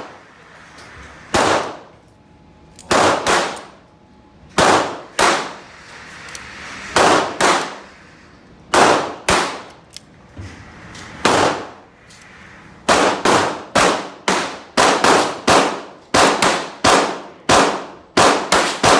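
Semi-automatic pistol shots echoing in an indoor range, each a sharp crack with a ringing tail. They come spaced out and often in pairs for the first twelve seconds or so, then as a faster string of about two to three shots a second.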